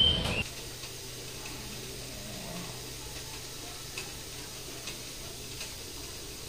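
Quiet room tone: a faint steady hiss over a low steady hum, with a few faint ticks. About half a second in, a short burst of high descending chirps cuts off abruptly.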